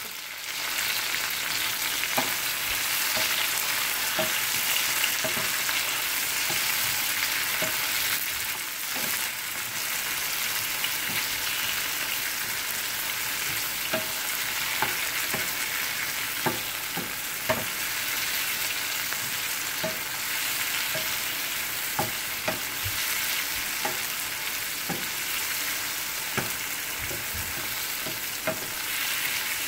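Sliced tomato, bell pepper and onion sizzling steadily in oil in a frying pan, with a wooden spatula stirring them and knocking lightly against the pan now and then.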